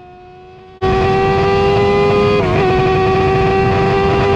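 An F1000 open-wheel race car's motorcycle-derived engine, heard onboard, droning at a steady, flat pitch instead of rising through the revs. It jumps sharply louder under a second in and wavers briefly about two and a half seconds in. This is the noise the engine is not supposed to make, the sign of the engine failing.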